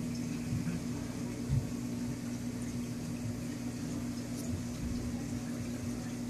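Reef aquarium equipment running: a steady low electrical hum from the tank's pumps and powerhead, with a wash of moving water. There is a soft low thump about a second and a half in.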